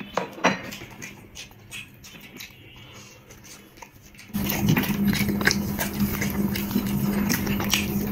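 Close-up eating sounds: wet chewing, lip smacks and clicks while a man eats curry and rice. About four seconds in, the background suddenly gets louder, with a steady low hum under the eating noises.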